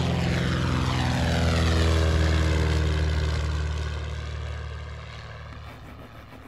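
Single-engine propeller airplane flying low past: the engine and propeller note drops in pitch as it goes by, then fades away.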